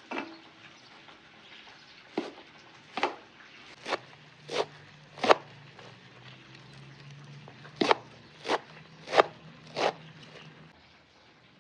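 A series of about ten sharp knocks at an even beat, roughly one every two-thirds of a second, in two runs with a pause between, over a faint low hum in the middle.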